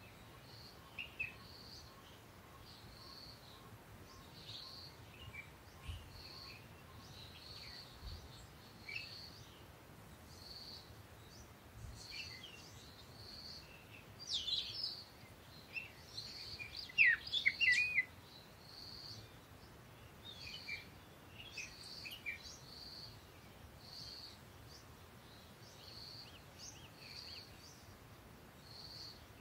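Birds chirping. One bird repeats a short high note about once a second, while others give varied chirps that are busiest and loudest about halfway through.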